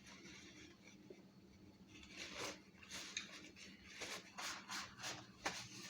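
Chewing a mouthful of shrimp taco close to the microphone: soft, noisy chewing sounds starting about two seconds in and repeating about two to three times a second, over a steady low hum.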